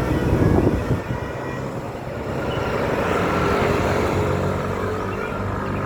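Bus engine running amid road traffic, a steady low drone over road noise.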